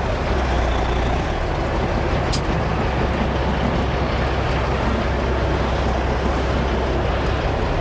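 Dump truck's diesel engine running steadily with a low drone, with one sharp click about two and a half seconds in.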